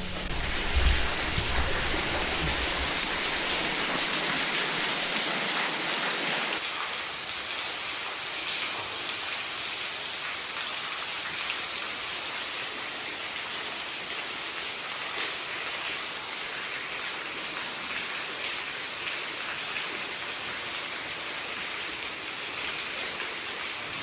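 Water falling and spattering down a wet cave pit, a steady rain-like hiss. For about the first six seconds it is louder and hissier, then it drops abruptly to a softer, even spatter.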